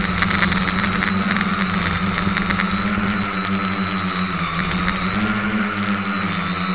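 SK450 quadcopter's brushless motors and propellers whining in flight, heard from the onboard camera. The pitch wavers slightly up and down as the throttle changes, dipping about four and a half seconds in and rising again soon after.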